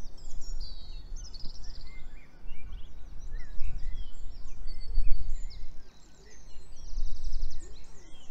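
Several songbirds chirping and singing, with short trills, over an irregular low rumble that swells and fades.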